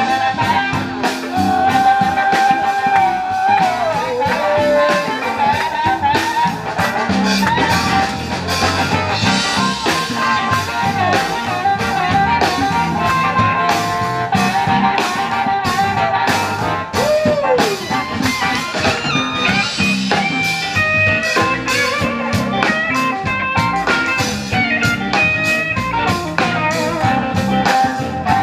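Live electric blues band playing an instrumental stretch with no vocals: electric guitar over a drum kit, the lead line holding and bending notes.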